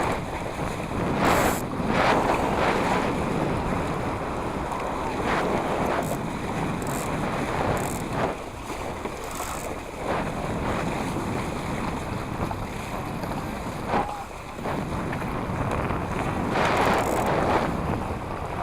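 Wind buffeting the microphone over water washing and splashing around a small sailboat, swelling and easing in irregular gusts, strongest near the start and near the end.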